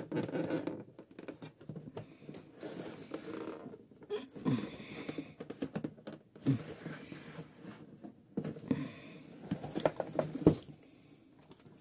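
Large cardboard box being turned over and pried at: irregular scraping and scratching of cardboard with scattered light knocks and a few short squeaks, as the box resists opening.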